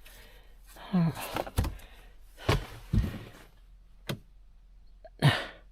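Several separate dull knocks and thunks, with a short voice sound, falling in pitch, about a second in.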